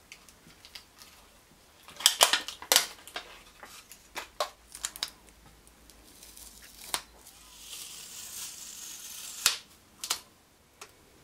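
Plastic wrap and tape being peeled and torn off a lithium-polymer battery pack: irregular crackles and sharp snaps, with a longer tearing rip in the last few seconds that ends in two loud snaps.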